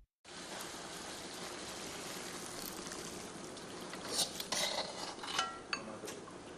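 A steady hiss, with several clinks of dishes and tableware between about four and six seconds in.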